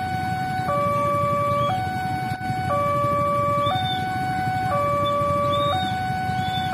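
Railway level-crossing warning alarm sounding its two-tone electronic signal, switching between a higher and a lower tone about once a second, to warn that a train is approaching.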